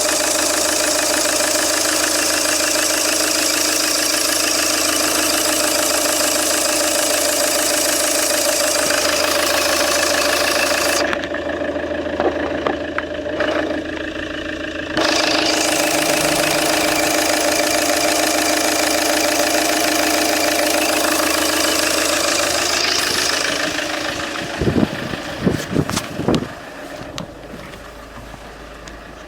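Peugeot 807's 2.0 HDi 110 four-cylinder diesel running steadily at idle with a dense clatter. The sound goes briefly muffled partway through, a few knocks come near the end, and then it grows quieter.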